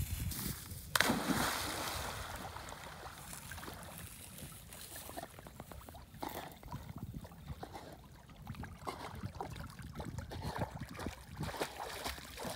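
A dog jumping into a river with a splash about a second in, then swimming with its paws churning the water, and splashing at the edge as it comes back to the bank near the end.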